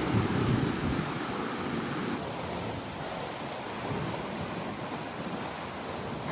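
Sea surf washing against a rocky coast, with wind buffeting the microphone in low rumbling gusts that are strongest in the first second.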